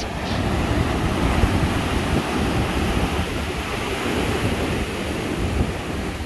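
Sea waves breaking and surging against the shore in a strong wind, with heavy wind rumble on the microphone. The sound is muffled by a hand cupped over the microphone against the wind.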